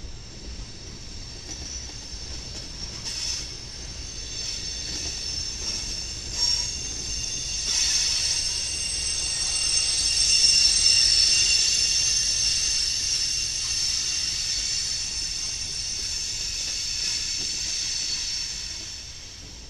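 Freight train flatcar wheels squealing against the rails on a curve: a high-pitched squeal of several tones that builds about eight seconds in, peaks, and fades near the end, with shorter squeals before it and a low rumble of the rolling train underneath.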